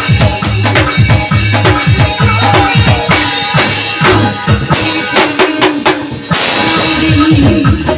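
Gondang-style dance music: a busy, fast pattern of tuned drums whose low hits fall in pitch, over a kick drum and snare with sustained instrument tones. The drumming breaks off briefly about six seconds in, then comes back.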